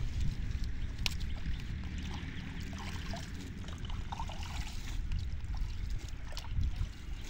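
Hands sloshing and groping in shallow muddy water among weeds, with small irregular splashes and drips over a steady low rumble.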